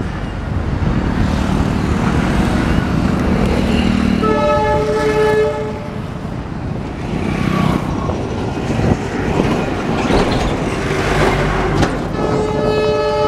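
Steady rumble of a passing goods train and road traffic, with wind on the microphone, broken by two horn blasts: one about four seconds in lasting about a second and a half, and another near the end.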